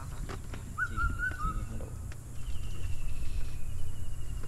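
Bird calls across an open pond: a short wavering whistle about a second in, then a long, high, slowly falling call. A steady low rumble lies underneath.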